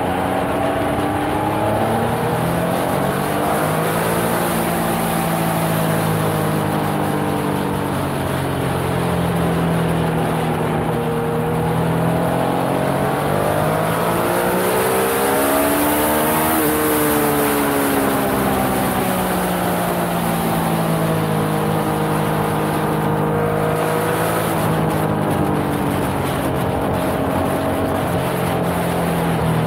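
Yamaha XSR900's 847 cc inline-three engine being ridden hard, its revs rising and falling with gear changes and throttle. It climbs to a peak about halfway through and then falls away, with wind rushing over the microphone.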